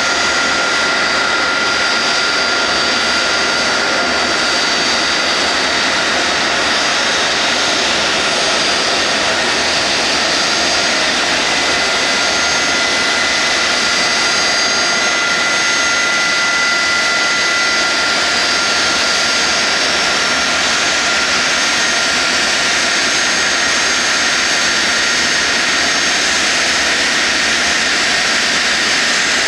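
Jet aircraft engines running steadily: an even rush of noise with several high, whining tones held throughout.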